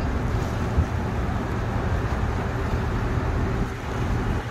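Outdoor waterfront city ambience: a steady low rumble with wind buffeting the microphone.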